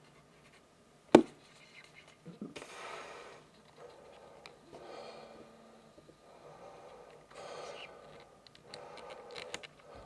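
A single sharp knock about a second in, then several short rustling, breath-like noises, typical of someone handling and repositioning a camera close to the microphone.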